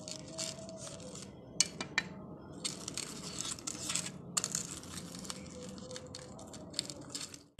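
Knife cutting through the crisp crust of kurkure-crumb-coated, shallow-fried rolls against a pan: a run of irregular crunches and crackles, some sharper than others.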